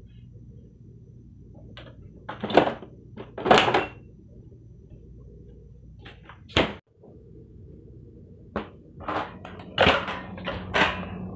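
Someone rummaging in a refrigerator and its freezer: a handful of short, loud clatters and knocks as containers and packages are moved about, over a steady low hum.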